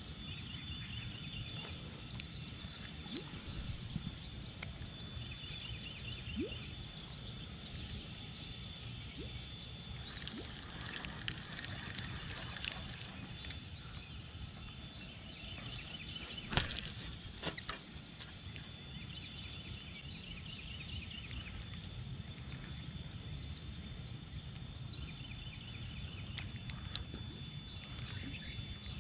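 Outdoor pond-side ambience: small songbirds trilling in short repeated phrases over a low steady rumble, with one sharp click a little past halfway.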